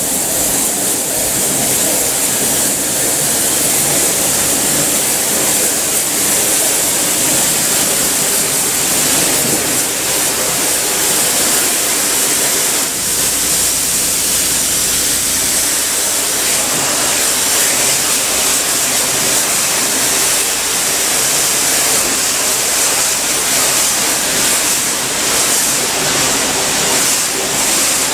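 Cleaning equipment running with a loud, steady, bright hiss that does not let up.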